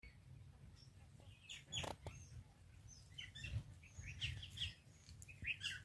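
Faint bird chirps, short and scattered, over a low rumble, with a sharp click just under two seconds in.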